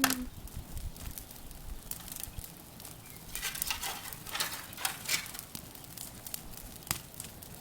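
Bonfire of dry rubbish burning, crackling with scattered sharp pops, and a few brief louder rushes of noise about halfway through.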